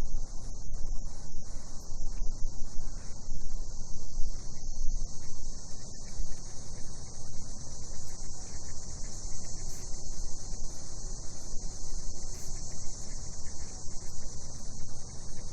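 Night chorus of cicadas: a continuous high, even buzzing that never lets up, over a low, uneven rumble.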